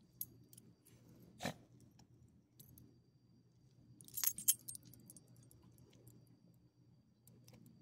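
Metal ID tags on a small dog's collar jingling as the dog rolls and twists on pavement, with a loudest cluster of jingles about four seconds in. A single short thump comes about a second and a half in.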